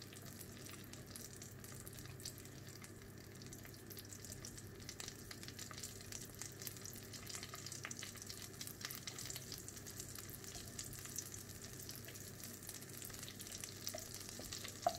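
Butter and olive oil sizzling gently in a nonstick wok, a fine steady crackle, as a wooden spatula pushes the melting block of butter around the pan. A low steady hum runs underneath.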